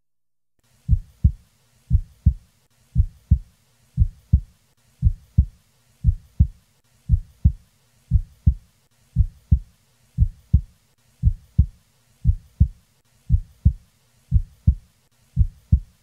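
Recorded human heart sounds: a steady lub-dub rhythm of about one beat a second, with two short thumps per beat. It is an example of a normally split first heart sound, in which the mitral and tricuspid closures of the first sound (lub) fall 20 to 30 milliseconds apart.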